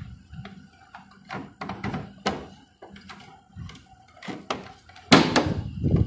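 Plastic clicks and knocks of a split air conditioner's swing flap being handled and fitted back onto the swing motor shaft: scattered light taps, with louder knocks about five seconds in.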